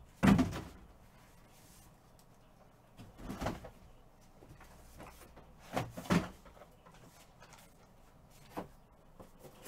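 A few dull knocks and thuds with quiet between them, the loudest just after the start and the rest spread out every two to three seconds.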